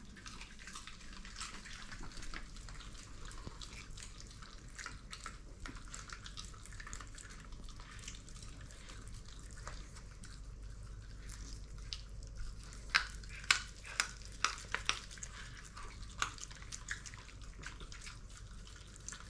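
Shiba Inus eating raw salmon: wet smacking, licking and chewing, with a run of louder sharp clicks and crunches about thirteen to sixteen seconds in.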